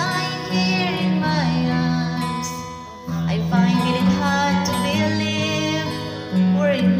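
Song music: an acoustic guitar karaoke backing track with a woman singing over it in held, sliding notes.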